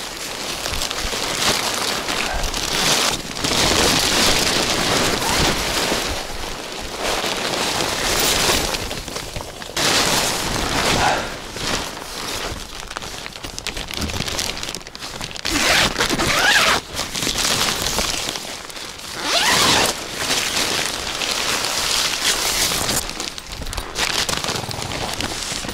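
Synthetic tent fabric of a Bereg cube ice-fishing tent rustling and flapping as it is unfolded and spread out, in loud surges that swell and fall.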